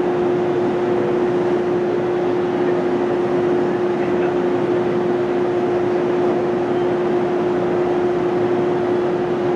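Steady electrical and mechanical hum of an electric train standing at the platform, with one constant tone running through it.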